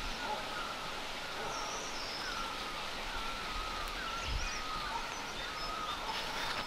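Outdoor forest ambience: birds calling over and over in short chirps, over a steady background hiss.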